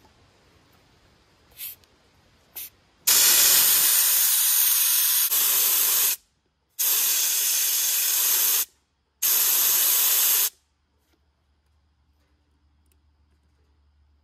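Air hissing out of a Yokohama M/T Jeep tire through the bleed valve of a dial-gauge tire deflator: two short puffs, then three long releases of two to three seconds each, each cut off sharply. The tire is being aired down for off-road driving.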